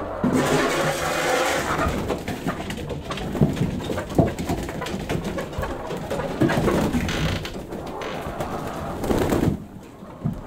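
Hens clucking and murmuring low inside a chicken coop, with scraping and knocking throughout.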